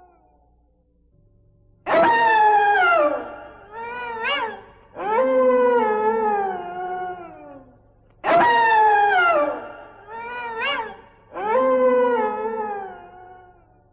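Howling animal calls from a haunted-house sound-effects record. Long howls fall in pitch, with two short rising cries between them, and the whole sequence is heard twice.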